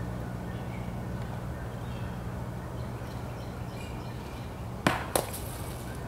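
A thrown golf disc striking something hard about five seconds in: two sharp knocks about a quarter second apart, the second with a short ringing tail, over a steady low hum.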